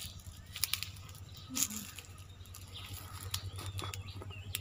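Rustling of leaves and branches with crackling footsteps on dry ground litter, an irregular scatter of short crackles over a low steady hum.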